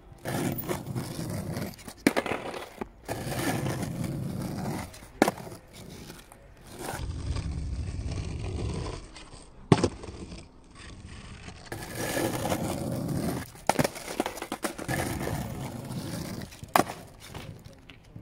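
Skateboard wheels rolling on rough asphalt in several runs of a second or two each, broken by about five sharp wooden clacks of the board popping and slapping back down on the ground during ollie attempts.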